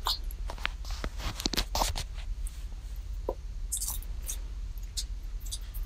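Fluffy slime made of white glue and shaving cream being kneaded and stretched by hand, giving a run of small sticky clicks and pops, thickest in the first couple of seconds and sparser after.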